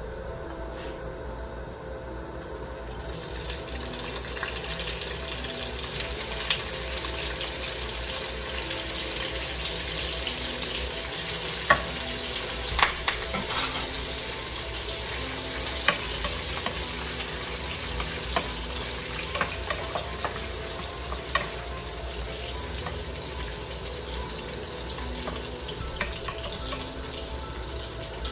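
Sausage links sizzling as they fry in a frying pan. The sizzle swells about three seconds in, when the sausages go into the hot pan, and a scattering of sharp pops and clicks sounds over it.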